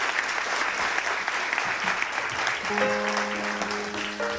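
Audience applauding, dying down, as an instrument in the band starts holding soft, steady notes about two and a half seconds in.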